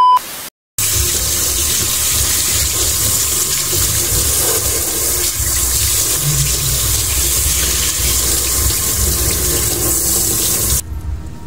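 Kitchen tap running and splashing onto a raw pig's head as it is rinsed by hand in a stainless-steel sink. The water stops about a second before the end. A short electronic beep sounds at the very start.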